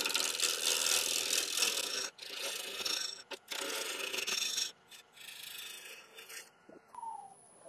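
A bowl gouge cutting a spinning damson blank on a wood lathe: a rhythmic scraping in several stretches with short breaks, growing quieter after about five seconds. The blank is not yet round, and the rhythm is typical of an interrupted cut over flat spots and bark.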